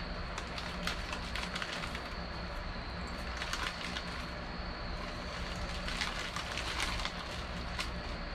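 Small clear plastic parts bag crinkling in the hands in irregular bursts of crackle, over a steady background hum with a faint high whine.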